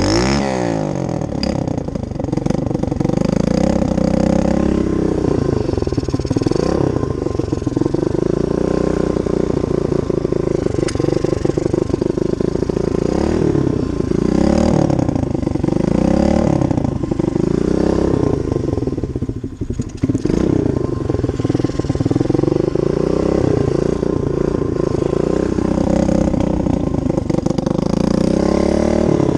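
SSR dirt bike's single-cylinder four-stroke engine running under throttle, its pitch rising and falling again and again as it revs up and eases off, with a brief drop in revs about two-thirds of the way through.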